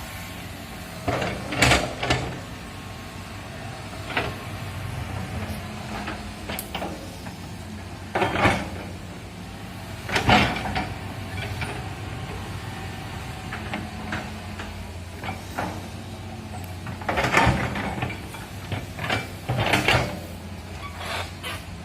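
Excavator's diesel engine running steadily, with several loud clanks and crashes of the working bucket and its load breaking in at intervals.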